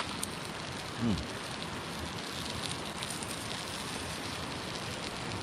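Campfire cooking: a steady sizzling hiss with many small crackles from food and fire on the grill, and a brief voice sound about a second in.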